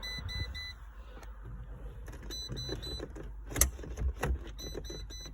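A car's electronic warning chime beeping in quick repeated runs of short, same-pitched beeps. Two sharp clicks sound a little past the middle.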